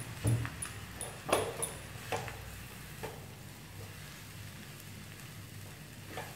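Wooden spatula knocking and scraping against a non-stick wok as boiled, mashed tapioca is stirred into frying onions and chilies, over a faint sizzle. The knocks come thick over the first three seconds, then the stirring goes quieter.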